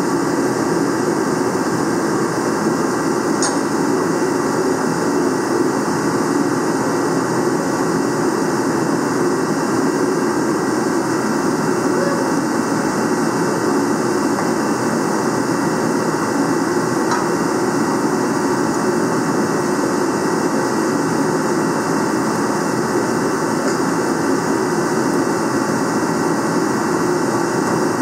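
A loud, steady machine drone that does not change in pitch or level, with a couple of faint clicks.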